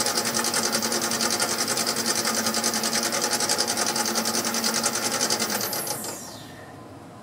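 Mini lathe running with a steady machine whine and a fast, even pulse from its spinning chuck and gears; it is switched off about six seconds in and winds down, the whine falling in pitch.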